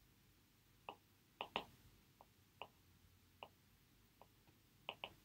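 About ten faint, irregular light clicks of a stylus tapping on a tablet screen while handwriting.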